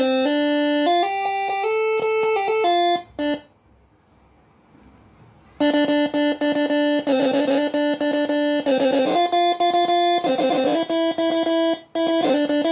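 Moreno MS5 six-trumpet telolet air horn playing a melody of held notes, stopping for about two and a half seconds after about three seconds, then starting again with warbling trills in places.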